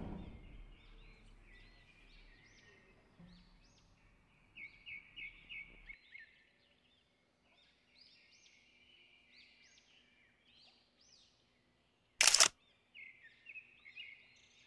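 Small birds chirping continually, in quick runs of short rising and falling chirps. About twelve seconds in, a single loud camera-shutter click.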